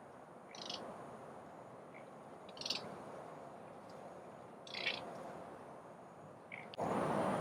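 Wild bird giving short, high calls about every two seconds over a steady outdoor background hiss. Near the end the background noise jumps up abruptly and loudly.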